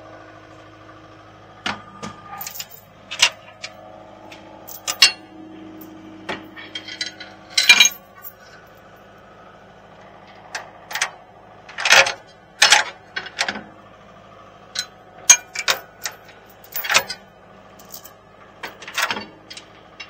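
Skid steer idling with a steady hum, under a string of short, sharp metal knocks and clanks from someone climbing onto the machine, the loudest ones in the middle.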